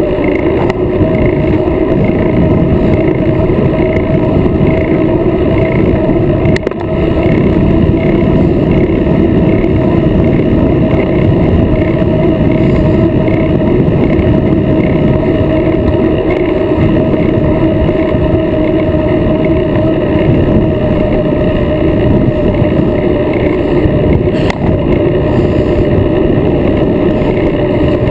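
Wind rushing over the microphone of a camera on a moving bicycle, a steady loud roar with a constant whine running through it.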